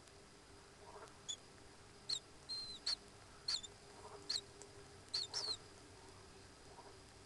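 Common kingfisher giving short, shrill, high-pitched whistled calls, about eight in a loose series over some four seconds, over a faint steady hum.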